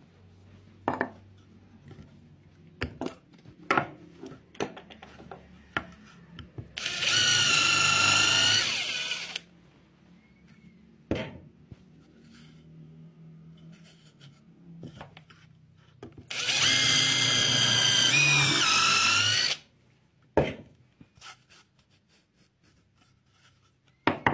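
Power drill driving a quick-change countersink bit into wood, in two runs of about two to three seconds each with a high whine; during the second the pitch dips briefly as the bit bites. Between the runs, short knocks and taps of wooden pieces being handled and set down.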